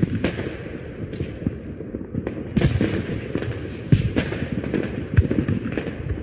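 Aerial fireworks going off in a rapid, irregular barrage of sharp bangs and crackles, with a thin whistle about two seconds in.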